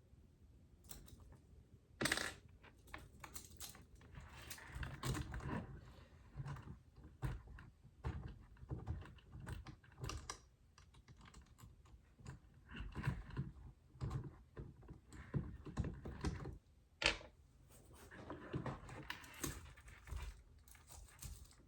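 Irregular light clicks, taps and small rattles of plastic and metal RC crawler chassis parts and screws being handled and fitted together, with a sharper click about two seconds in and another near seventeen seconds.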